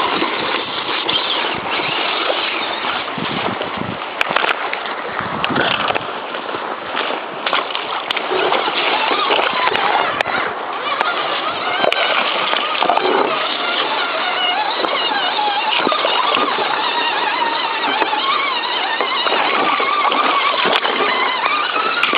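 Steady rush of shallow creek water, with splashing as 1/10-scale Axial SCX10 RC crawler trucks drive through it.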